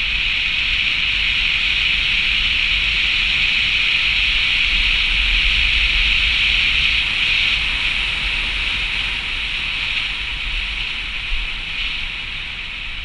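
A car driving on a hard-packed snow road sanded with gravel: a steady hiss of tyres on gravel and snow over a low road rumble, swelling slightly and easing a little near the end.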